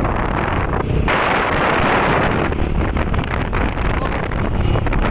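Wind buffeting the microphone of a camera riding on a moving vehicle, over a steady low rumble from the vehicle; the wind noise grows stronger about a second in.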